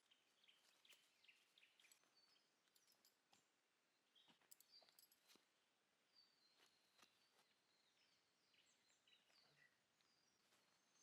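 Near silence, with faint birds chirping in the bush and a few faint ticks.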